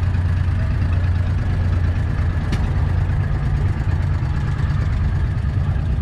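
An engine idling steadily with a constant low hum, and a faint click about two and a half seconds in.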